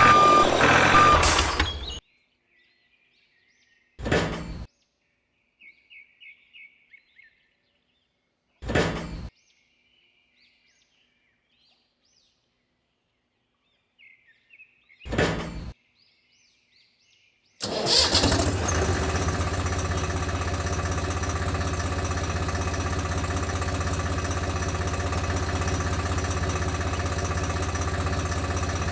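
Small motor of a homemade model machine: three short bursts a few seconds apart, then it starts and runs steadily with a constant hum for the last third.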